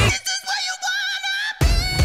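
Background song with a wavering high melody. The bass drops out just after the start and comes back in with the full band about a second and a half in.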